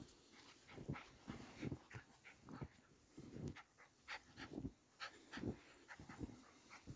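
Faint footsteps crunching in snow, about two steps a second, with a dog panting.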